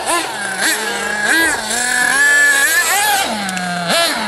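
Small nitro engine of an RC buggy revving in quick throttle blips, falling back toward idle between them. It holds a high rev for a moment in the middle, then drops and picks up sharply again near the end.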